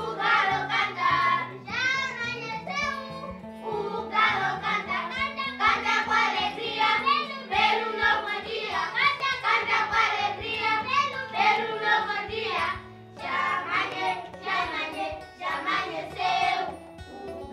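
A group of children singing a song together in chorus.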